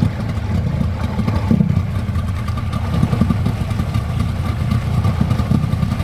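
Motorboat engine running steadily while towing a banana boat.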